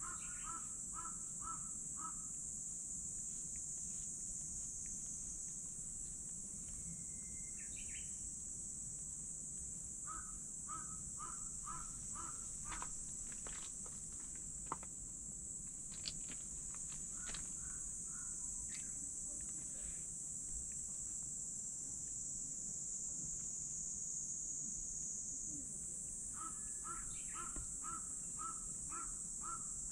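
A steady high drone of cicadas, with a crow cawing in quick runs of about eight caws near the start, about ten seconds in, and again near the end. A few faint ticks sound in the middle.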